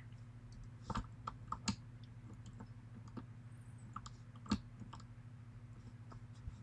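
Scattered small metallic clicks and taps of a tension wrench being worked into the keyway of a padlock, over a steady low electrical hum.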